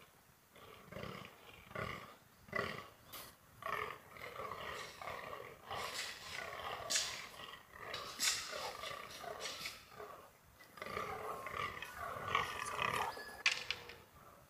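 Fallow deer bucks croaking in the rut: a long run of short, repeated croaks from several bucks, overlapping and coming every second or so, with a brief lull about ten seconds in.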